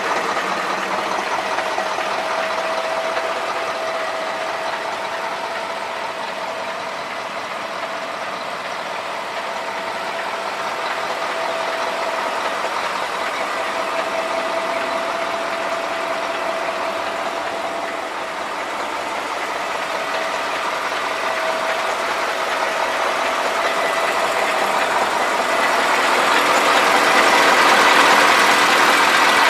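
KamAZ-43118 truck's diesel engine idling steadily, growing louder near the end as the engine bay comes close.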